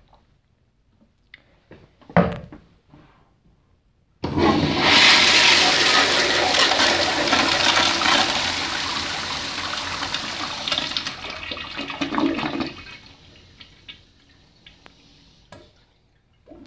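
1991 Crane Plumbing commercial toilet flushed through its manual flushometer valve. A sharp clunk comes about two seconds in. A loud rush of water starts suddenly about four seconds in, eases off around twelve to thirteen seconds, and fades out.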